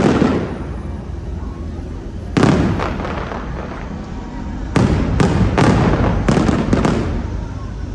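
Aerial fireworks shells bursting overhead. One bang comes right at the start and another about two and a half seconds in, then a quick run of about seven bangs from about five to seven seconds in. Each bang trails off in an echoing rumble.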